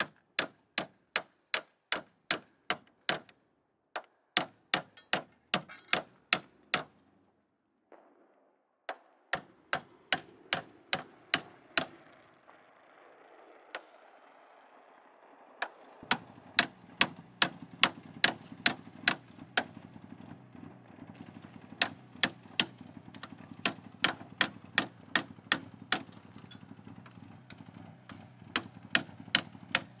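A run of sharp, evenly spaced clicks, about three a second, in bursts separated by short pauses. A low steady hum comes in about halfway through.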